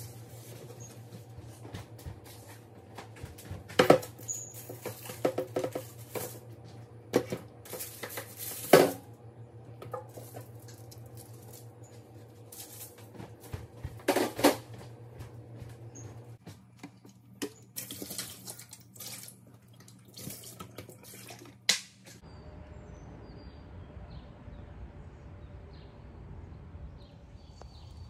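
Dishes and utensils clattering in a kitchen, a string of separate knocks and clinks over a steady low hum. About 22 s in the clatter stops abruptly and a quieter, even background takes over.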